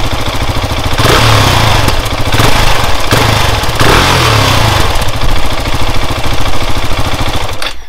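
KTM 690 SMC-R's single-cylinder engine on its stock exhaust, running at a standstill: idling with three quick blips of the throttle in the first few seconds, then shut off just before the end.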